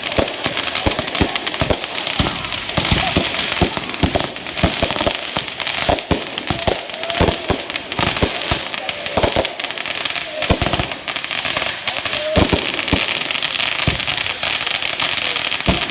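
Fireworks going off: a dense, irregular run of pops and bangs over continuous crackling.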